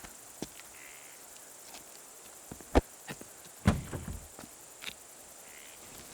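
A car boot being opened and searched: a sharp click a little under three seconds in, then a heavier thud with a brief rattle, among a few small knocks.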